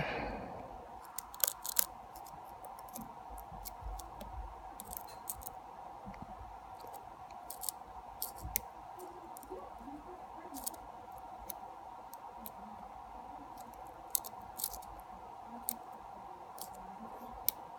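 Lock pick and tension wrench working the pins of a pin-tumbler lock in single-pin picking: faint, scattered small clicks and scrapes every second or two, as the pick lifts pins and they set or fall. A steady faint hum runs underneath.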